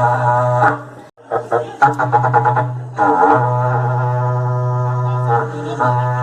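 Berrante, the Brazilian cattle-drover's horn, blown with a low, buzzing, droning note. It breaks off briefly about a second in, stutters in a run of quick short pulses, then settles into a long held note.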